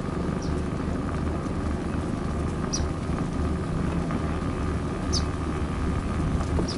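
Motor scooter running steadily under way, with a constant low rumble and a faint steady whine. Four short high chirps break in over it.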